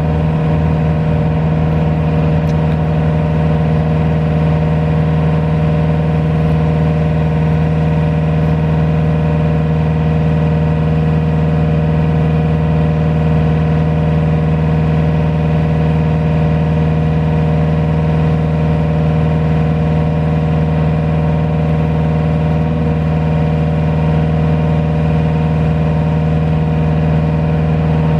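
Diesel engine running at a steady, unchanging speed, powering the truck-mounted boom lift's hydraulics.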